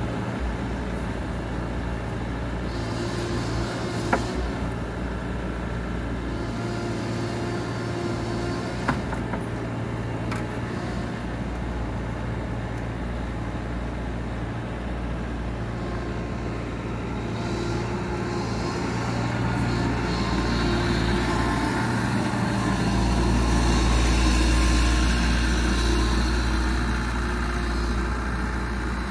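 2016 Bobcat Toolcat 5600's diesel engine running steadily, with two sharp knocks in the first ten seconds. The engine grows louder past the two-thirds mark, then eases slightly.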